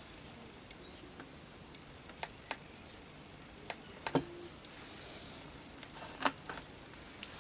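Buttons on an Inskam 113 handheld endoscope being pressed: several short, sharp clicks, some in quick pairs, with light handling of the unit.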